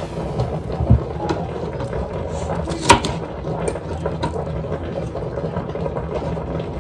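A steady low rumble, like an idling engine, runs throughout. About three seconds in a kitchen knife knocks sharply on a plastic cutting board, with a duller thump about a second in.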